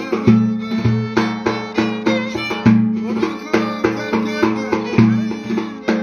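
Turkish folk dance tune on violin over a large double-headed davul drum beating a steady, repeating rhythm. The bowed violin melody runs above the low drum thuds throughout.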